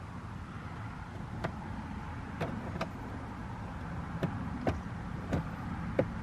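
Sharp clicks and light knocks, about seven of them at uneven intervals, from plastic steering-column trim and small parts being handled and worked loose, over a steady low background hum.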